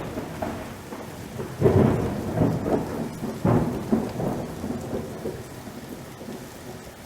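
Thunder rolling in a heavy rainstorm: two loud rumbling peaks, about two and three and a half seconds in, that die away over the steady hiss of falling rain.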